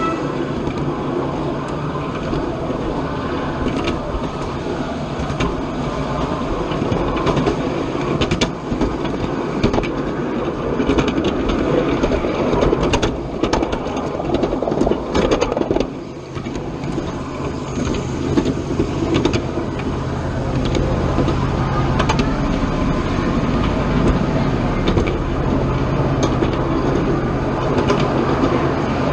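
Miniature ride-on railroad train running along its track, with continuous rumbling and frequent sharp clicks from the wheels on the rails; a steady low hum joins in about halfway through.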